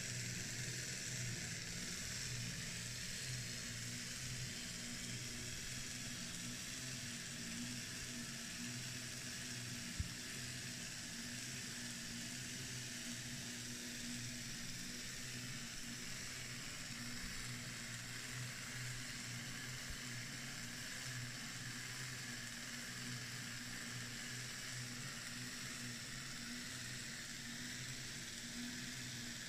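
Replica Skinner gravity-powered machine running: a steady low hum with a faint hiss over it, and a single sharp click about ten seconds in.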